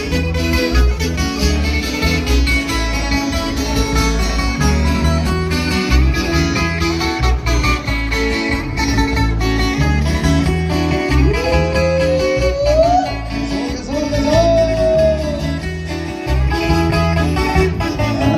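Live band music: guitars playing over a steady, pulsing bass line, with a lead melody that slides up and down in pitch in the second half.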